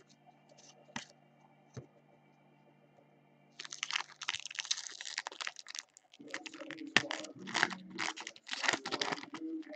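A few faint clicks, then about three and a half seconds in, an Upper Deck Ice hockey card foil pack torn open, its wrapper crinkling and rustling in the hands in a dense crackle.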